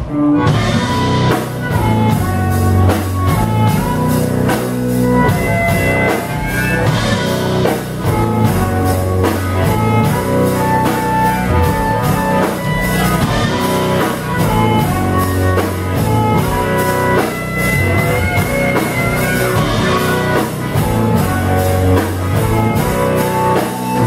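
Live band playing an instrumental passage: drum kit and electric bass carrying a steady beat under electric guitar and held melody notes.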